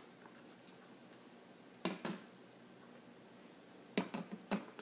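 A few sharp taps on kitchenware, a pair about two seconds in and three near the end: a spoon knocking against a bowl as spices are added to a yogurt marinade.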